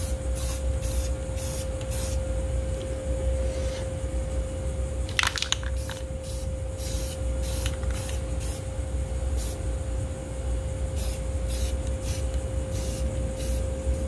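Aerosol can of self-etching primer spraying onto a mower deck in a series of short hissing squirts, one after another, with a stronger one about five seconds in. A steady hum runs underneath.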